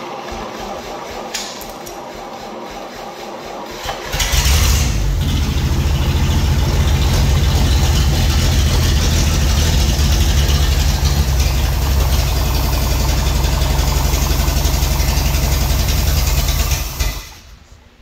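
Continental sawmill power-unit engine cranking on its starter for about four seconds, then catching and running loudly on a small charge of gasoline fed to its open carburetor. It stops near the end.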